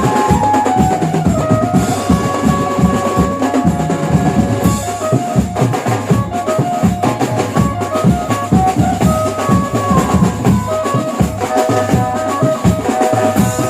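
Background music from a Mumbai banjo-party band: a stepping melodic line over fast, dense drumming.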